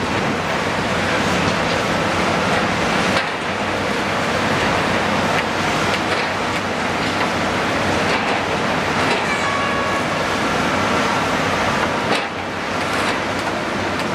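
Steady din of a CAT 320DL hydraulic excavator's six-cylinder diesel engine running under load as it digs and swings its bucket through mud, mixed with city traffic noise. There are a few knocks, and a brief high whine about nine seconds in.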